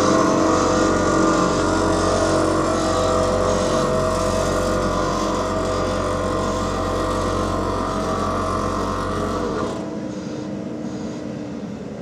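Diesel engine of heavy road-paving machinery running steadily. It becomes abruptly quieter about ten seconds in.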